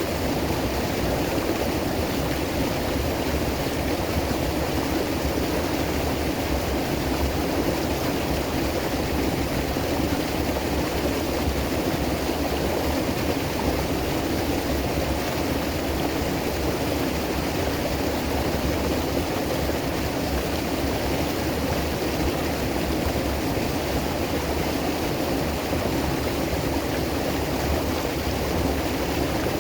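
River water flowing over rocks: a steady, even rushing with no breaks.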